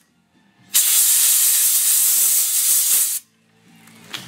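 Compressed-air soda blaster, a pneumatic air sprayer pulling baking soda up from a jar, hissing in one loud blast of about two and a half seconds that starts and stops abruptly as the trigger is pulled and released. A small click follows near the end.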